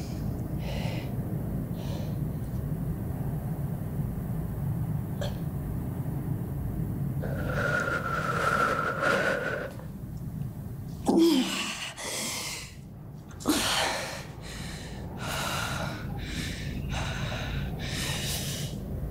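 A woman gasping, whimpering and sobbing in pain over a steady low rumbling drone. About eight seconds in comes a drawn-out whimpering cry; from about eleven seconds on, sharp ragged gasps and sobs follow one after another.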